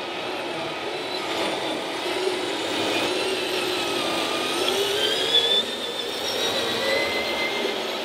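Radio-controlled scale three-axle dump truck driving, its running sound gliding up and down in pitch over a background of hall noise, with a short knock about five seconds in.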